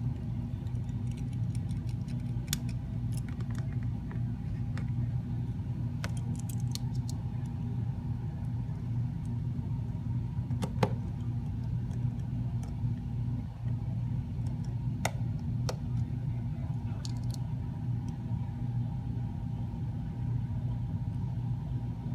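Sparse small clicks and taps of tiny tools and metal parts being handled while an iPhone's screen and brackets are put back together, the loudest about 11 seconds in, over a steady low hum.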